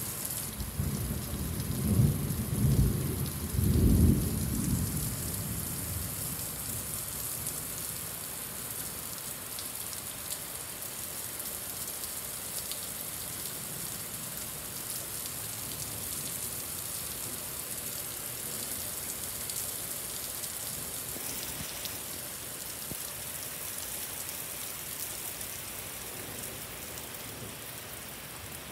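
Heavy rain pouring steadily, with a low rumble of thunder peaking a few times in the first few seconds as the loudest sound, then fading.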